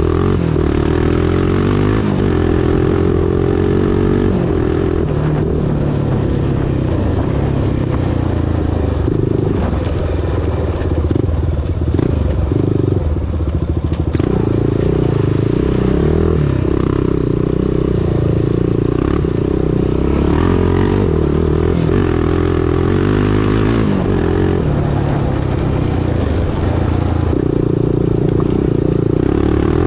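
Honda TRX400EX ATV's single-cylinder four-stroke engine running at trail speed, the revs rising and falling with the throttle. It eases off through a muddy stretch near the middle and picks up again, with clatter from the machine over rough ground.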